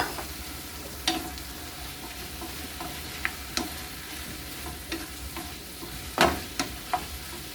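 Onions and garlic frying in olive oil in an enamel skillet with a steady sizzle, while a utensil stirs them, knocking against the pan about seven times, loudest about six seconds in.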